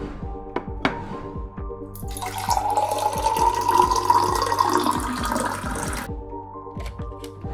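Water pouring from a water dispenser tap into a glass mug, starting about two seconds in and stopping suddenly about four seconds later. Background music with a steady beat plays throughout.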